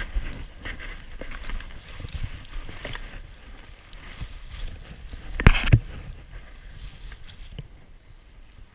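Leafy branches rustling and knocking as a chimpanzee pulls and bends them while weaving a nest, close to a camera strapped to its body. There are two loud knocks a little past the middle, and the rustling dies down near the end.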